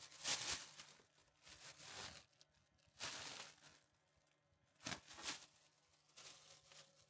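Plastic bag rustling and crinkling in about five short bursts as the small sealed bag is pulled out of a self-sealing trash can.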